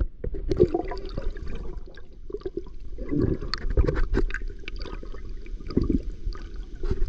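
River water sloshing and gurgling close to the microphone, in irregular muffled surges with scattered small knocks.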